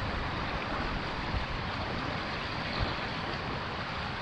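Wind: a steady hiss with low, uneven rumbling from gusts hitting the microphone.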